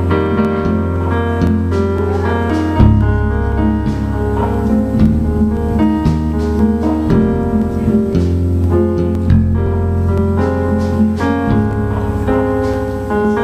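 Keyboard playing sustained chords over a strong low bass line, the chords changing every second or two.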